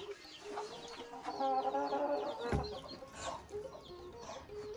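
Hens clucking in a steady series of short, repeated notes, with a dull knock about halfway through.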